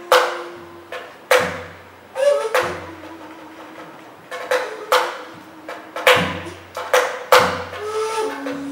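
Tabla played in sparse, irregular strokes: sharp ringing hits on the treble drum and deep bass strokes on the bass drum, over a steady held note that steps down in pitch near the end.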